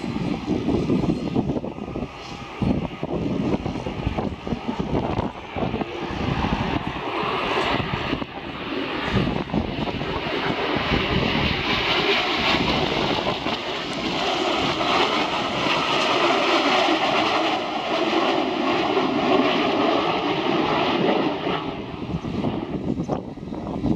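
Kawasaki T-4 jet trainers flying past with a rushing jet noise that builds from about ten seconds in and falls away near the end, with gusts of wind buffeting the microphone.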